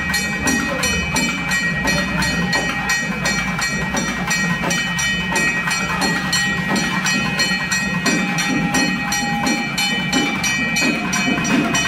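Festival drum band playing a fast, steady beat of about four strokes a second, with a held high tone running over the drumming.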